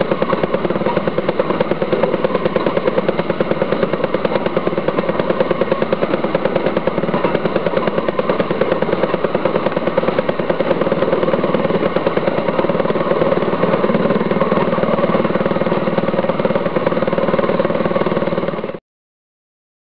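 Engine of a Fairmont M19 railway section car (speeder) running steadily while the car travels along the track, with a fast, even beat. It cuts off abruptly near the end.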